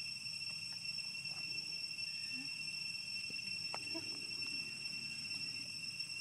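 Steady, high-pitched drone of insects, two unbroken shrill tones one above the other, over a low outdoor rumble, with a few faint clicks.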